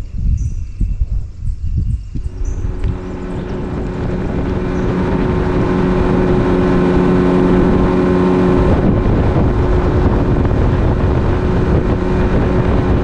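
A boat motor starts running about two seconds in and carries on steadily, gradually getting louder as the boat gets under way. Wind buffets the microphone before the motor comes in.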